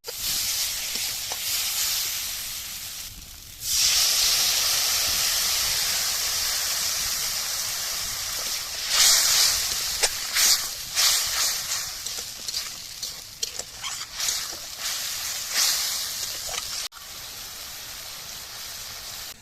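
Food frying in hot oil in a pan: a steady sizzle, with sharp crackles and spatters through the middle stretch.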